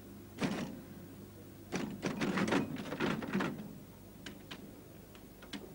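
Electric typewriter keys striking: a short clatter, then a dense run of rapid strikes lasting nearly two seconds, then a few single key clicks. A steady low hum runs underneath.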